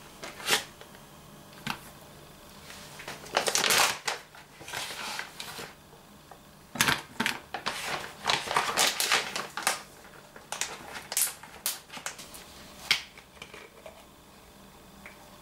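A foil butter wrapper and then a plastic packet being handled, crinkling and rustling in short irregular bursts, with a few sharp clicks.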